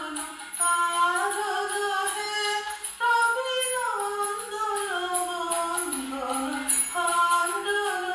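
A woman singing a Bengali devotional Guru Vandana hymn, holding long notes that slide from pitch to pitch, with a faint steady low tone beneath.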